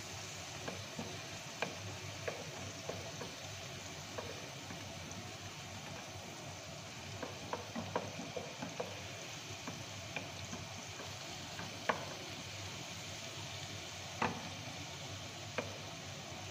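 Chopped onion sizzling steadily in hot oil while a wooden spatula stirs it, with scattered clicks and knocks of the spatula against the pan.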